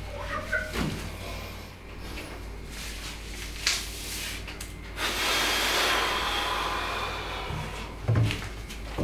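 Cleaning sounds: a sponge squeaks briefly on a soapy glass shower screen near the start, a rushing hiss lasts about two seconds in the middle, and a dull thump comes near the end.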